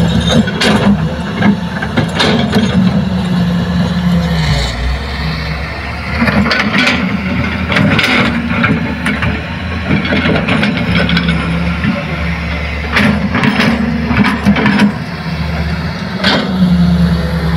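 Hitachi hydraulic excavator's diesel engine working under load, its note rising and falling, with scattered knocks and clatters as the bucket digs soil and rock.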